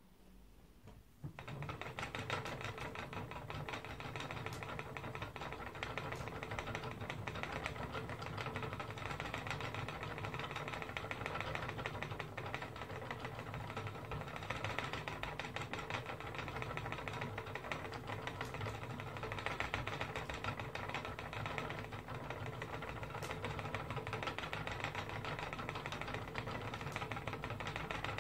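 Wooden spinning wheel starting up about a second in, then running steadily with a fast, even rattle as the flyer and bobbin turn.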